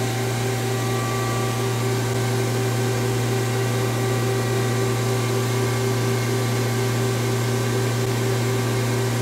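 Steady machine hum from a Mazak CNC lathe standing powered up at idle, a low drone with several held tones above it and no change in pitch.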